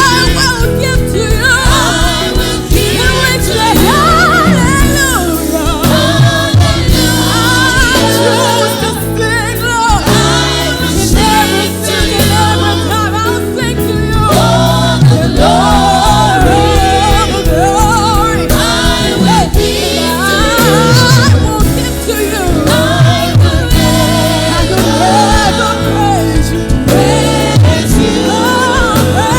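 Gospel song: voices singing a melody over full band accompaniment with a steady bass.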